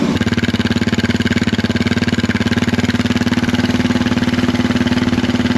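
Suzuki DR650's single-cylinder four-stroke engine idling steadily on choke as it warms up from a cold start, running evenly on the newly replaced choke cable.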